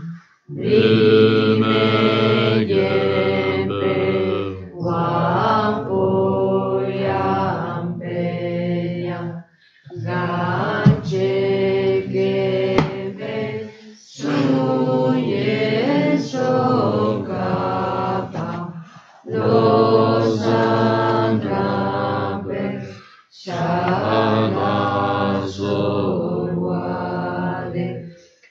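Voices chanting a Tibetan Buddhist prayer together in slow, melodic phrases, with short pauses for breath between lines about every four to five seconds.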